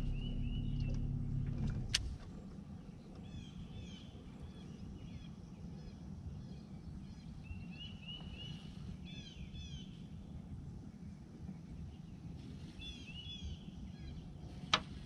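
A low steady motor hum cuts off about two seconds in, with a click as it stops. After that it is quiet open-water ambience with a songbird chirping in short repeated phrases, several bursts of them.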